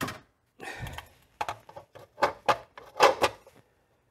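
Metal clanks and scrapes as a dished steel end plate is set back onto a VW Beetle alternator on a metal bench: a string of sharp knocks, the loudest ones between about two and three and a half seconds in.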